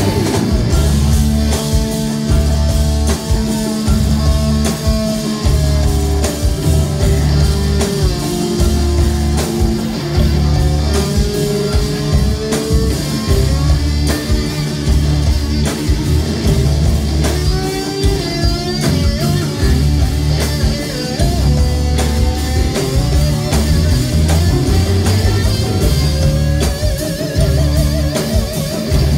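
Live rock band playing an instrumental passage: a lead guitar solos with sliding string bends and vibrato over bass and drums.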